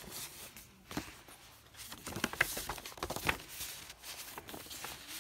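Paper rustling with irregular crisp taps and crackles as a folded paper quick-start booklet is handled and its pages turned, busiest in the middle.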